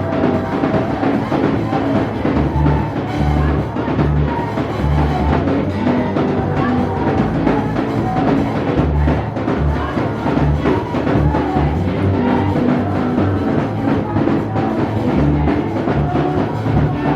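Music with a steady drum beat and a repeating bass line.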